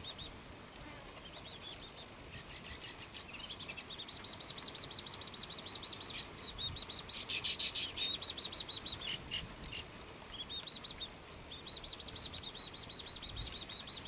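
Baya weavers chattering at their nests: rapid runs of high, buzzy chirps, each run a few seconds long with short breaks between, and two sharp clicks about nine seconds in.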